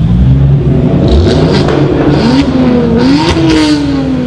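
Modified car engine revving as it pulls away, its pitch climbing and falling twice and peaking about three seconds in, then easing off. Short hissing rushes sound over it about a second and a half in and again around three and a half seconds in.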